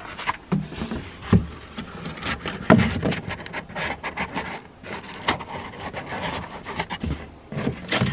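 Cardboard rubbing and scraping against the inside of a plastic garbage can as a cardboard brace is pushed into place, with a few sharp knocks.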